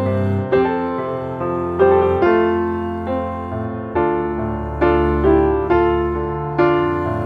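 Background piano music: slow chords struck every second or so, each ringing and fading before the next.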